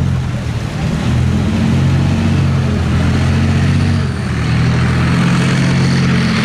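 Leopard 2A4 main battle tank driving past, its V12 diesel engine running loud and steady, with small shifts in pitch as it moves.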